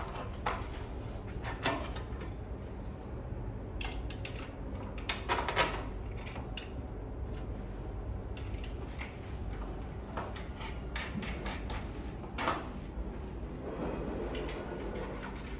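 Scattered knocks, taps and clatter of Adirondack chair parts being handled and fitted together during assembly, over a steady low background hum.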